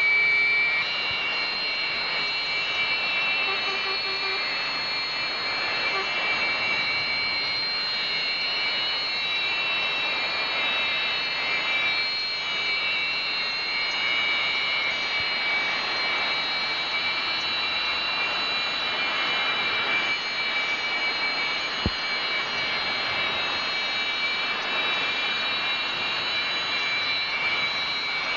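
Jet engines running steadily, a continuous rush with a high turbine whine. One sharp click about 22 seconds in.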